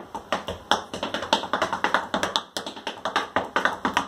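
Tap shoes striking a wooden tap board: a fast, uneven run of sharp taps, several a second.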